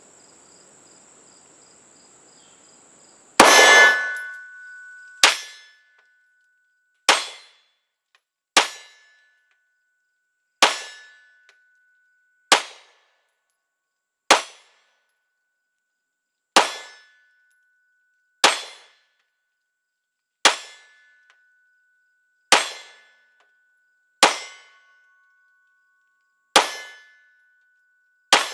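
Glock 19 Gen 5 9mm pistol fired in slow, deliberate single shots at a steel target, about one shot every two seconds, each shot followed by the ring of the steel plate being hit. The first shot, about three seconds in, is the loudest.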